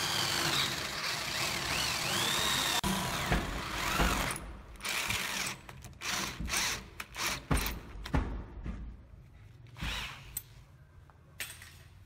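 Corded electric drill boring into a wooden door. For the first four seconds it runs continuously, its motor whine dipping and rising again as the bit bites. After that come short separate bursts of drilling and sharp knocks that grow fainter toward the end.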